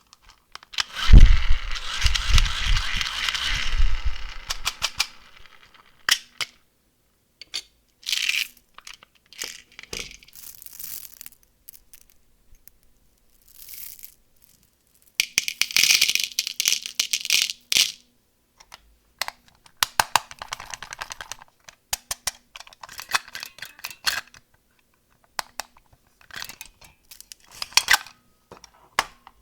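Candy packaging being handled and unwrapped close to the microphone: plastic wrappers crinkle in short bursts, with scattered sharp clicks and taps. The loudest sound is a heavy low thump and rustle about a second in.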